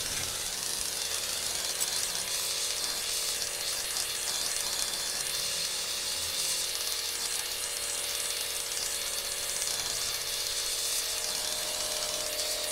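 Gas welding torch flame hissing steadily while a filler rod is melted into a hole in a motorcycle engine case, sealing the leak around the gearshift shaft.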